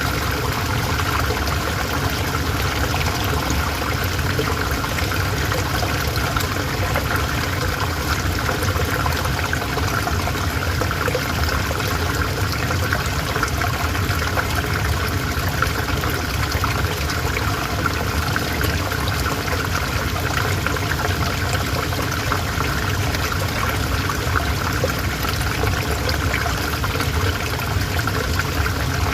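River water flowing steadily over stones, an even rushing and trickling that does not change.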